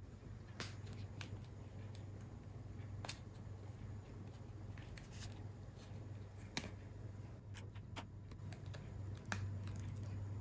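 Scattered small clicks and taps of hand tools working on a smartphone's plastic and metal parts, a dozen or so at irregular intervals, over a steady low hum.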